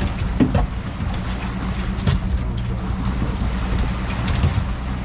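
Outboard motor running steadily at trolling speed, a low even hum, with wind buffeting the microphone and water washing past the hull. A knock about half a second in and a couple of brief clicks around two seconds in.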